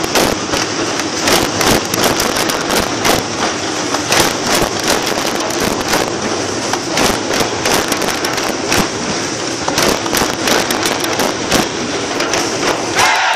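A large crowd drumming together on djembes with their hands: a dense, continuous clatter of many hand strikes, with louder beats standing out now and then.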